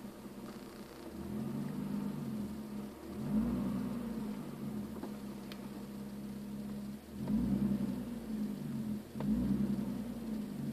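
Nissan 370Z's 3.7-litre V6 engine revved up and let back down several times in short blips, its pitch rising and falling about every two seconds.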